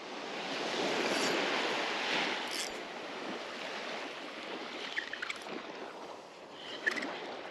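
Small surf breaking and washing up a sandy beach, swelling over the first couple of seconds and then easing off, with a few light clicks in the second half.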